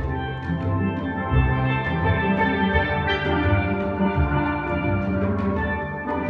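Steel band playing: an ensemble of steelpans, from small lead pans to large bass pans, sounding a tune of many ringing notes over a low bass line.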